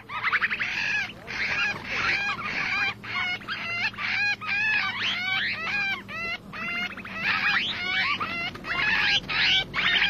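A flock of small ground-feeding birds calling: many short chirps and squeaky calls overlapping in a continuous chatter.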